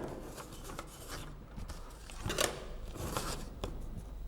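Short scratching and rubbing strokes with a few light clicks, from a pencil and ruler being worked over a small wooden board while lines are marked out; the strongest scrape comes about halfway through.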